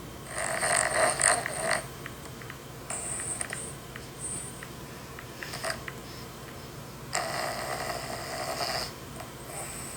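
A person snoring: two loud snores, one near the start and one about seven seconds in, each lasting about a second and a half, with fainter breathing noises between them.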